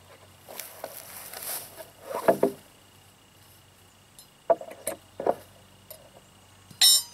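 Split fence rails being handled on grass: a wooden knock and scrape a couple of seconds in as a rail is turned over, then a few sharp clicks, and near the end a brief bright rattle.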